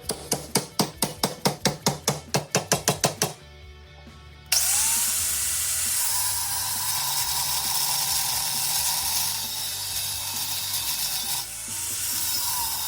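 Quick, even hand-tool strokes on aluminum stock, about five a second, for roughly three seconds. Then, about four and a half seconds in, a power tool starts and runs steadily as it cuts into the aluminum.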